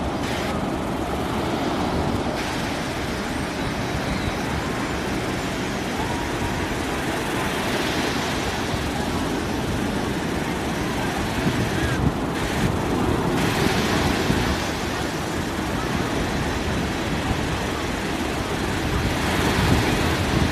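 Steady wash of breaking surf mixed with the babble of a crowd of bathers.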